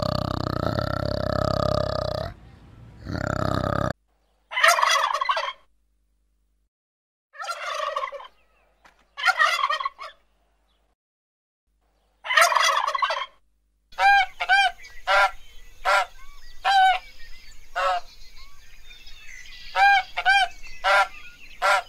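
A male orangutan gives a low, drawn-out call, which cuts off about four seconds in. Turkeys then gobble four times, with silent gaps between. Near the end, geese honk again and again in quick short calls.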